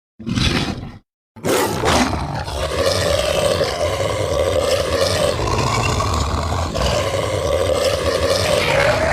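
Werewolf creature sound effect: a short burst, a brief gap, then about a second and a half in a long, drawn-out roar holding a steady pitch over a low rumble.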